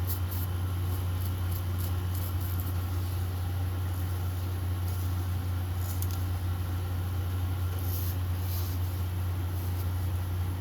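A steady low hum runs throughout, with faint light clicks and rustles scattered over it.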